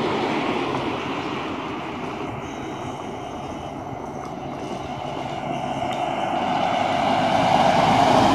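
Steady road traffic noise as a city bus approaches and passes close by near the end, its engine and tyre noise growing louder as it comes alongside.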